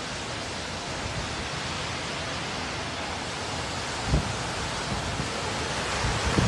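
Steady rushing noise of storm wind and surf from a waterspout at the shoreline, with one brief wind buffet on the microphone about four seconds in.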